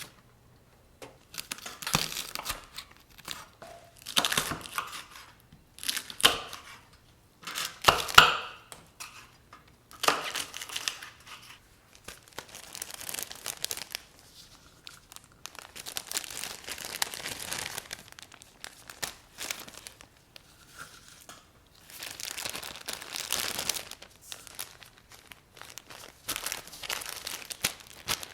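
Crinkling and rustling of wrapping material handled by hand, in irregular bursts of a second or two with short pauses between.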